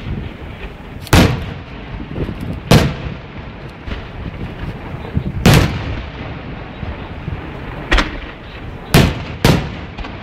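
Fireworks shells exploding: six loud bangs at uneven intervals, about a second in, near three, five and a half, eight, nine and nine and a half seconds, over a continuous low rumble of further reports.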